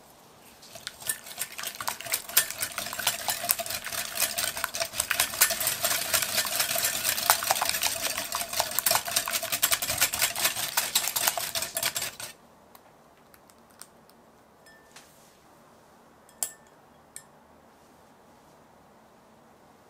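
Stainless wire balloon whisk beating egg and sugar in a glass bowl: fast, dense clinking of the wires against the glass with a light ringing tone. It builds up over the first second or two and stops suddenly about twelve seconds in, leaving only a few faint light taps.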